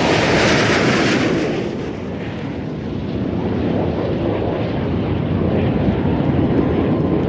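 Boeing 787 Dreamliner's twin Rolls-Royce Trent 1000 turbofans at takeoff power as the jet lifts off and climbs away, a continuous loud jet noise. It has a brighter hiss for about the first second and a half, dips a little around two seconds in, then builds again.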